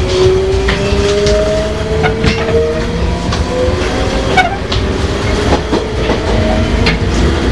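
Sotetsu 5000-series electric train heard from inside its leading motor car while running. The Toyo Denki VVVF inverter and the right-angle cardan drive give a whine whose tones rise slowly as the train gathers speed, over wheel-and-rail rumble and clicks from the rail joints.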